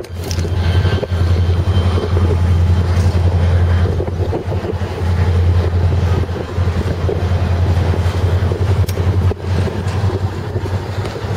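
Freight train of enclosed autorack cars rolling steadily past, with heavy wind buffeting the microphone as a loud low rumble.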